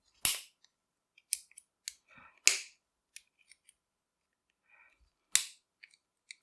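Sharp metal clicks and snaps, five or so spread unevenly, with faint scraping between, as a tool pries at the spring retaining clip on a padlock's lock core.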